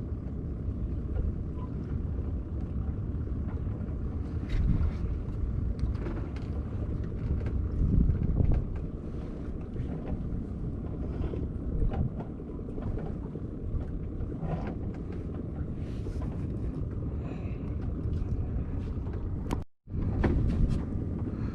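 Steady low wind rumble on the microphone aboard a small boat at sea, with scattered light knocks and clicks. The sound cuts out for an instant near the end.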